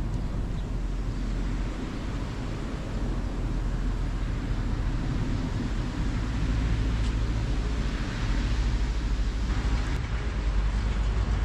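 Wind rumbling on the microphone outdoors: a steady low buffeting with an even hiss over it, rising a little about halfway through.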